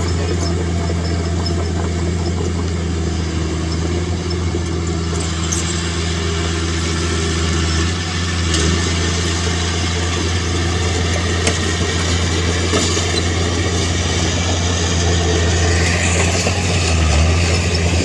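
Heavy-equipment diesel engine running steadily at a low, even pitch.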